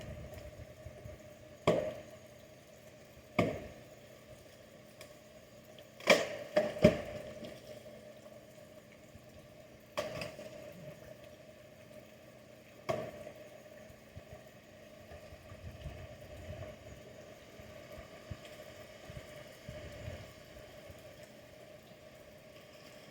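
Axe chopping into wood: six sharp strokes at uneven intervals, the two loudest close together near the middle, then the chopping stops for the last ten seconds or so.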